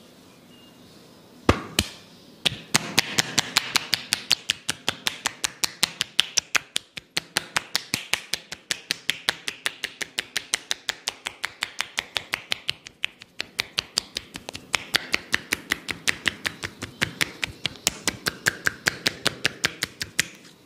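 Rapid, even slaps of a masseur's hands striking the body in percussive massage strokes, about four or five a second, starting about a second and a half in and going on nearly to the end.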